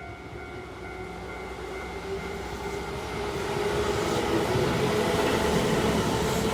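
Keihan Electric Railway electric train approaching and passing a level crossing, the rolling wheel and running noise building steadily to its loudest about four seconds in.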